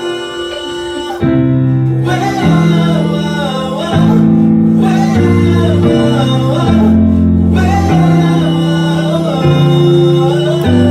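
A live band playing a song's instrumental intro. Sustained keyboard chords change every second or so under a wavering lead melody.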